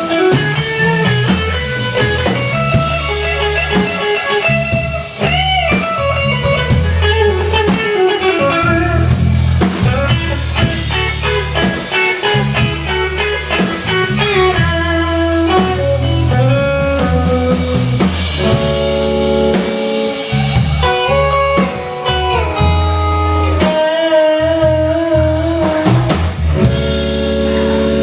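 Band playing an instrumental blues-soul passage: guitar playing sustained and bent notes over bass and drums.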